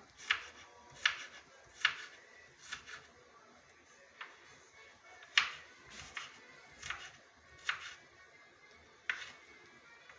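Kitchen knife chopping an onion on a cutting board: about a dozen separate knocks of the blade against the board, a little under one a second, unevenly spaced.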